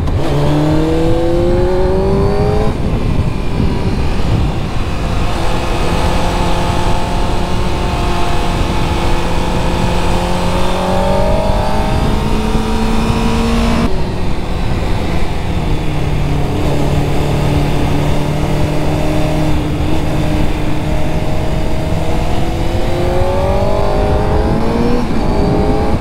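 Honda CBR600 inline-four engine under way. Its pitch climbs at the start, drops at a gear change about three seconds in, runs fairly steady, and climbs again near the end. Heavy wind rush over the microphone runs throughout.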